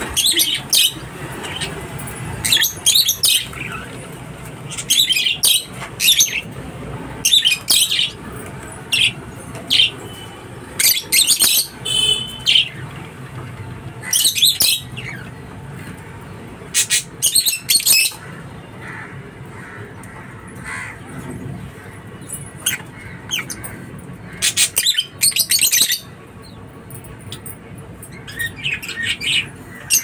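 Rosy-faced lovebirds calling: short, sharp, high-pitched chirps in quick runs of several, repeated every second or two, with a quieter lull a little past the middle.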